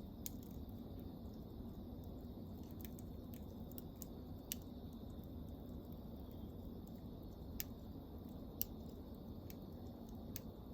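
Wood campfire burning: a low steady rush with sharp crackles and pops at irregular moments, about ten in all, the loudest near the middle.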